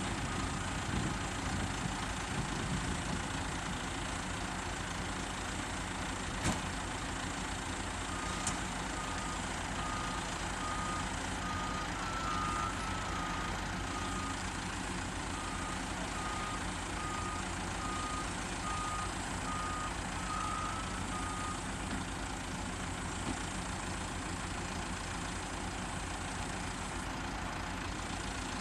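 Diesel engine of a crawler-mounted rotary drilling rig running steadily while boring a hole for a catenary mast. A warning beeper sounds at one pitch, about two beeps a second, for much of the middle stretch. There are two sharp knocks early on.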